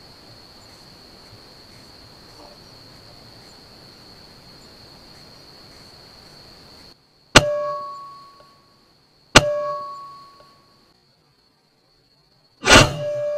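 Steady night-time cricket chirring, which cuts out about seven seconds in. Two sharp metallic dings follow about two seconds apart, each ringing and fading over about a second. Near the end comes a louder bang with the same ringing tone held on after it.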